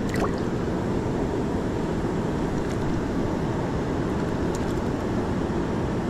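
Steady low rush of water falling over a dam, even and unbroken.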